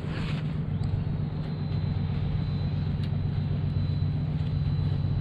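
A steady low mechanical hum, with a couple of faint clicks.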